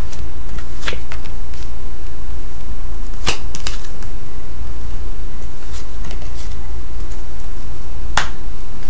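A tarot deck being shuffled by hand, heard as a few sharp separate card snaps over a steady low hum.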